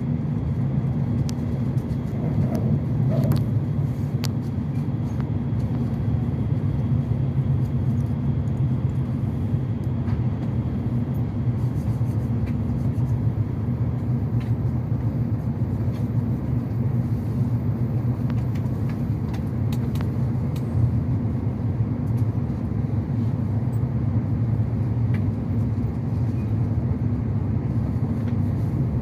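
Steady low rumble of a Joetsu Shinkansen train running, heard from inside the passenger car, with a few faint clicks here and there.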